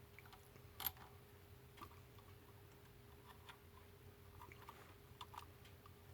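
Faint, scattered clicks and light taps of a screw and small metal parts being handled while lining up a chainsaw carburettor's mounting screw, with one sharper click a little under a second in, over a faint steady hum.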